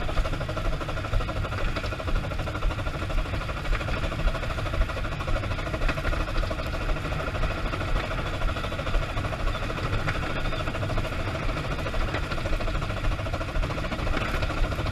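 Running noise of Green Goddess, a 15-inch-gauge steam Pacific locomotive, heard from inside its cab while under way. A steady rumble is broken by many small knocks.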